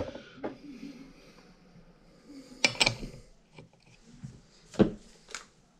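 A handful of short, sharp metal clicks as a 19 mm socket is handled and set onto a chainsaw's clutch nut, with faint handling noise between them.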